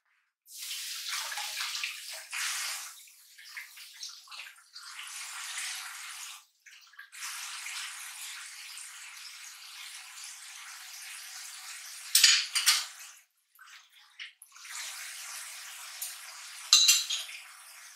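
Kitchen tap running in several spells, the water splashing as things are rinsed under it. Two sharp clattering knocks of dishware come about twelve seconds in and again near the end.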